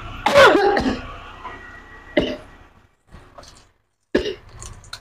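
A person coughing several times in short, separate fits, the first the loudest. The coughs are set off by the pungent fumes of the cooking, which the cook calls stinging ("nyengak").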